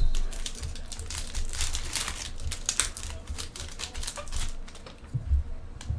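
Trading cards being handled and flipped through by hand: a quick run of light clicks and papery rustles, with a few soft knocks.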